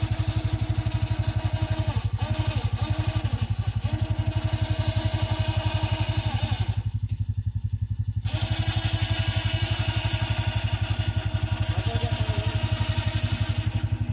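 ATV engine idling with a steady, fast, even thumping. A higher whirring runs over it, cuts out for about a second midway, then resumes.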